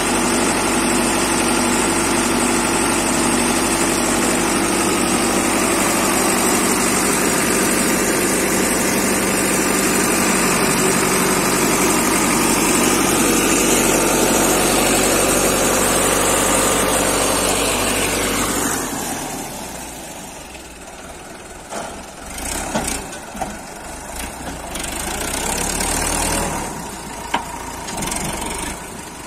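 Sonalika 750 tractor's diesel engine running steadily while the hydraulic tipping trolley is raised. About two-thirds of the way through it drops to a quieter, lower run, with scattered clunks and knocks.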